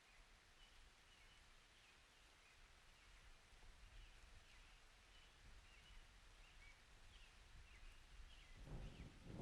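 Faint, quiet outdoor ambience with scattered small bird chirps, and a low rumble of distant thunder swelling up near the end.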